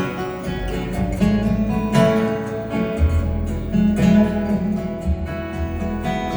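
Acoustic folk band playing an instrumental passage without singing: strummed acoustic guitar with plucked string lines and bass.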